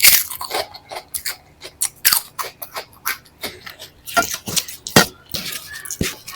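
Close-miked eating sounds: wet chewing and lip-smacking of rice and dal eaten by hand, in quick irregular clicks with a few louder smacks.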